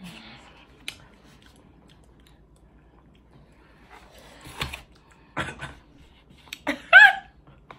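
Close-up mouth sounds of people eating and sucking on lime wedges: a few wet clicks and smacks and short bursts of chewing. Near the end comes a short, high voiced reaction sound.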